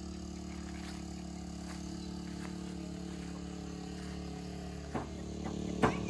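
A steady low hum made of several held tones, with a few sharp knocks near the end.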